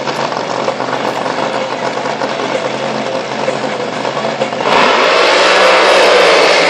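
Drag boat engines rumbling at the start line, then about four and a half seconds in a boat launches at full throttle and the engine sound jumps sharply louder and keeps climbing as it accelerates away.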